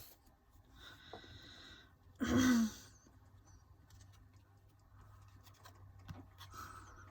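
Soft rustling of album paper and a sticker sheet being handled, with a short breathy vocal exhale about two seconds in.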